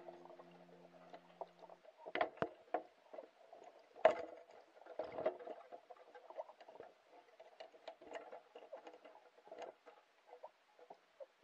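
Underwater sound picked up by a submerged camera: irregular clicks, pops and crackles over a faint murmur of water, the sharpest click about four seconds in.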